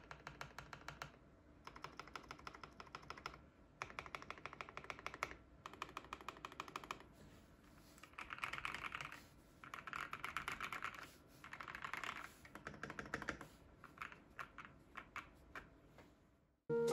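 Ikki68 Aurora custom mechanical keyboard, with lubed JWK Quartz linear switches, aluminium plate and PBT keycaps, typed on in quick runs of keystrokes. The runs come in a series of short bursts with brief pauses, thinning to a few single keystrokes near the end.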